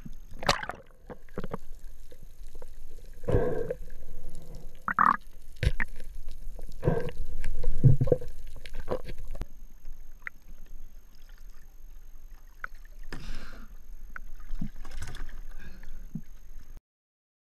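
Sea water splashing and sloshing around a waterproof action-camera housing at the surface and underwater, muffled, with irregular gurgles and scattered sharp knocks. The sound cuts off suddenly near the end.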